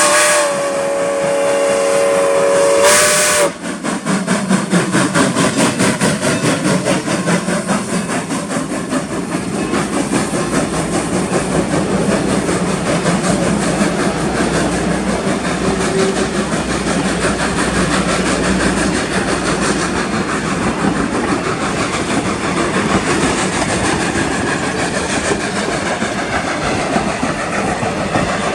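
Steam whistle of Strasburg Rail Road No. 475, a 4-8-0 steam locomotive, blowing a blast of several tones that cuts off about three seconds in. The locomotive then works away with steady steam exhaust and hiss as the train rolls along the rails.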